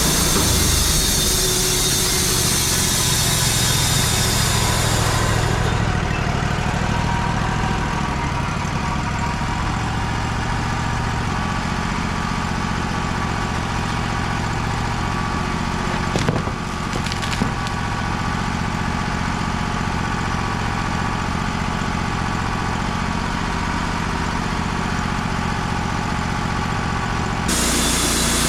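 Wood-Mizer LT35 band sawmill running, its band blade sawing through a white oak log with a high hiss over the engine for about the first six seconds. The engine then runs steadily without the cutting hiss, with two short knocks about halfway through, and the hiss comes back abruptly near the end.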